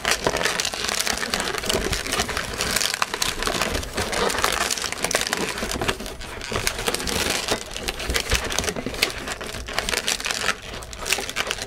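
Inflated latex twisting balloons squeaking and rubbing against each other in a dense run of short squeaks and crackles as pairs of balloon legs are twisted onto a round balloon body and pressed into position.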